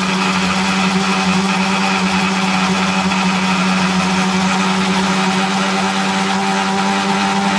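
Electric mixer grinder running steadily at full speed, its motor giving a loud, even hum and whine as the blades churn a wet paste of mint, coriander, chillies and garlic into green chutney.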